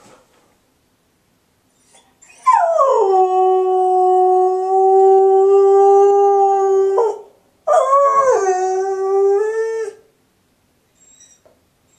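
Labradoodle howling twice: a long howl that starts high, slides down and holds one steady pitch for about four seconds before cutting off sharply, then a shorter, wavering howl. It is the lonely howling of a dog left home alone, missing its owners.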